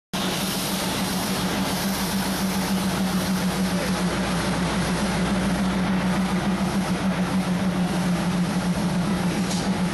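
Engine running steadily: a constant low hum over an even rush of noise, starting abruptly.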